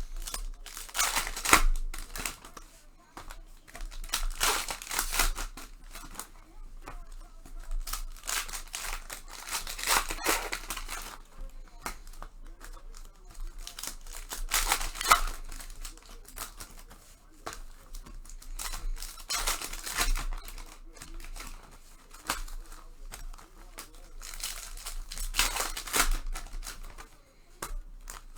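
Plastic trading-card pack wrappers crinkling and tearing as packs are opened by hand, in bursts every few seconds.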